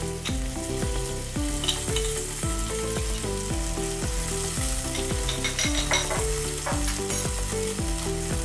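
Sauce sizzling in hot oil in a frying pan as it is stirred, a steady hiss. Background music with a stepping melody and a regular low beat plays over it.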